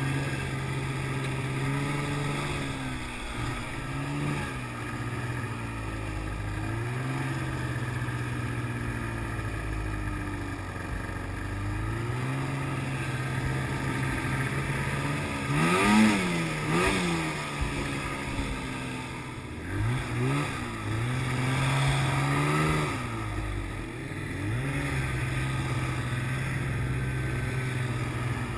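Snowmobile engine running at a steady speed, with a few quick revs up and back down in the middle; the sharpest rev comes about halfway through.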